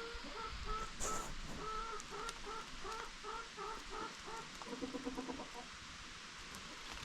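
Chickens clucking: a run of short repeated clucks at about three a second, then a quicker, lower run of calls about five seconds in.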